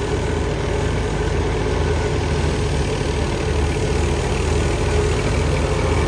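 Tractor engine driving a wheat thresher, running steadily under load.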